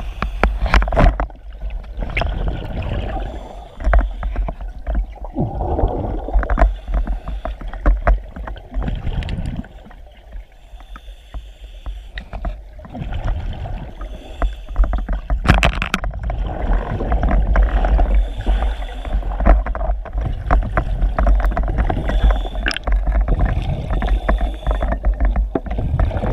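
Muffled rush and deep rumble of river current against an underwater camera housing on a scuba drift dive, with irregular louder surges of bubbling.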